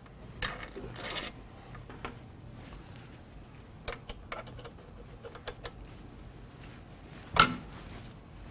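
Small metal parts scraping and clicking as a screw is worked out of a DeWalt 788 scroll saw's arm pivot bearing by hand and with a thin tool. A short scrape comes first, then scattered light clicks, then one sharp knock near the end.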